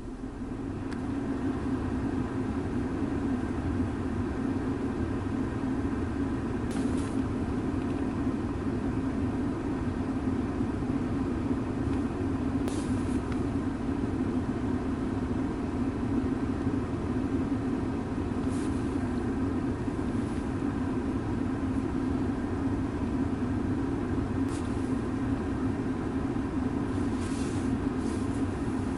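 A car engine idling steadily, heard from inside the vehicle, with a few brief hisses.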